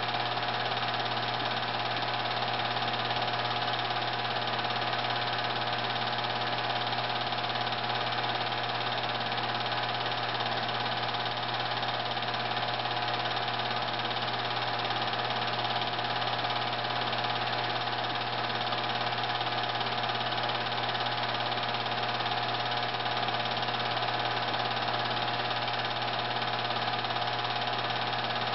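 Film projector running steadily: an even mechanical whirr with a constant hum.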